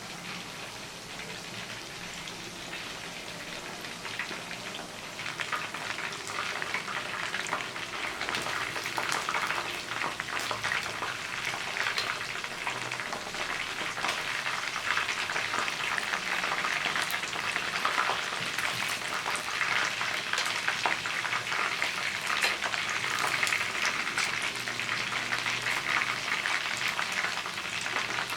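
Chicken wings frying in a pan, a dense sizzle and crackle that grows louder about five seconds in.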